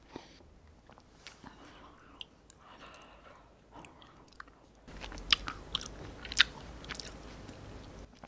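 Close-up chewing of a mouthful of ice cream with nut and chocolate-ball pieces in it: soft wet mouth sounds with small crunches. It gets louder, with sharper clicks, from about five seconds in.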